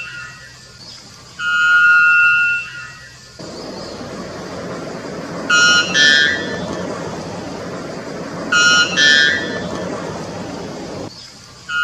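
A white bellbird's (araponga-da-amazônia) loud, ringing calls, repeated every few seconds. Each call is a held clear note followed by a short higher one. A steady rushing noise sits beneath from about three seconds in until shortly before the end.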